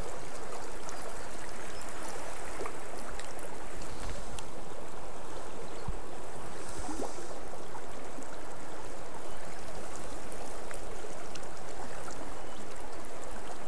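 Small rocky mountain river running over stones: a steady rush of flowing water.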